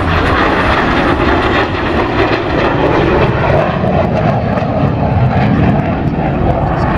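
Hawker Hunter jet making a display pass, its Rolls-Royce Avon turbojet giving a continuous loud jet noise. About four seconds in, its pitch starts to sink slowly as the aircraft draws away.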